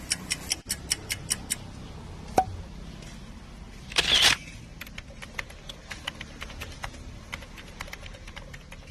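Quick, evenly spaced mechanical ticks, about five a second, that stop about a second and a half in; a short loud rush of noise about four seconds in, then fainter, irregular clicks.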